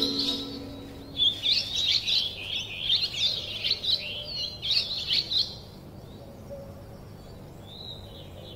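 A songbird singing a fast, twittering run of high chirps and warbled notes for about four seconds, starting about a second in.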